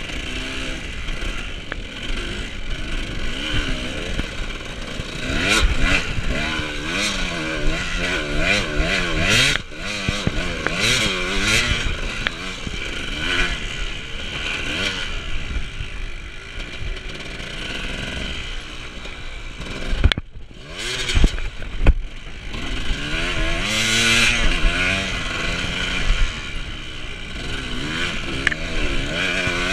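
Off-road motorcycle engine revving up and down again and again as the bike is ridden. About 20 seconds in the engine note briefly drops away and there are a couple of sharp knocks.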